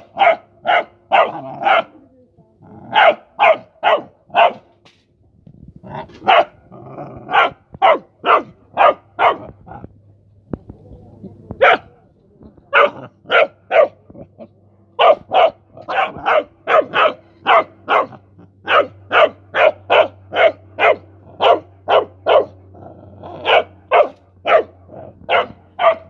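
Rottweiler puppy barking over and over, in runs of short sharp barks about two to three a second, with short pauses between runs.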